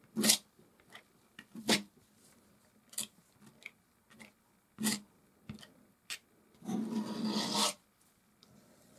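Palette knife scraping oil paint across a canvas: several short strokes about a second apart, then one longer drag of about a second near the end.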